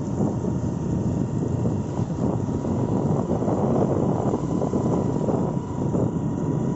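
Motorcycle running steadily while riding, its engine and road noise mixed with wind on the microphone.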